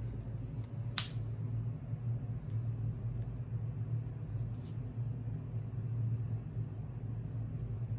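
Steady low mechanical hum, with one sharp click about a second in.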